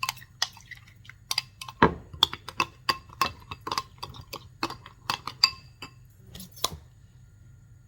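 Metal spoon clinking and tapping against a bowl while working a thick sauce paste: a quick, irregular run of short ringing clinks, the loudest just before two seconds in, stopping shortly before the end. A low steady hum runs underneath.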